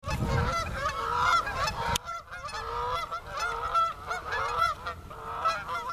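A flock of geese honking, many short calls overlapping continuously. A low rumble underneath stops abruptly about two seconds in.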